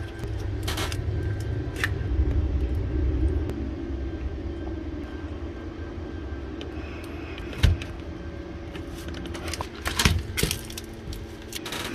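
Handling noises from a plastic dash bezel and small tools: scattered sharp clicks and knocks, a cluster of them near the end, over a steady low rumble.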